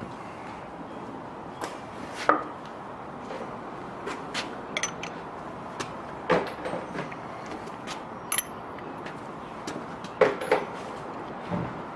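Hand tools clinking and knocking on metal compressor parts as a slide-valve fitting is worked loose: about fifteen irregular sharp clicks and knocks, a few with a short metallic ring, the loudest a cluster about ten seconds in.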